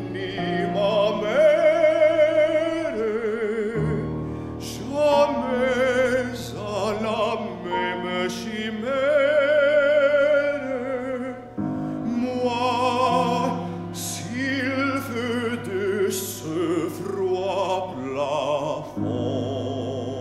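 Classical baritone singing in French with wide vibrato over a chamber ensemble of strings and piano, in phrases broken by short instrumental sustains.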